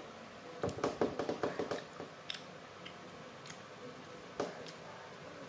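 A young macaque chewing food noisily, its mouth making short wet clicks: a quick run of about eight clicks in the first two seconds, then a few single ones.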